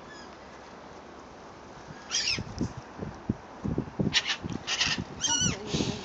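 Seagull crying in a few short harsh calls, mixed with short breathy hisses from a goose seeing it off, starting about two seconds in.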